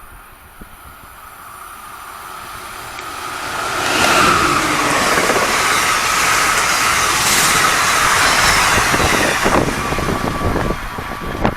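Passenger train passing at speed: a rumble of wheels on rail builds over about four seconds, stays loud for about five, then drops away, leaving wind gusting on the microphone near the end.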